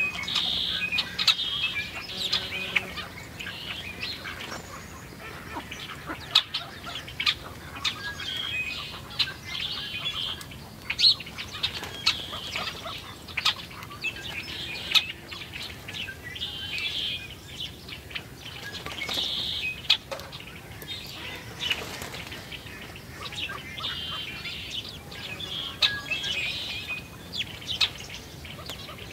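House sparrows chirping in a steady, busy chatter at a seed feeder, with wing flutters and sharp clicks of birds landing and pecking at the feeder.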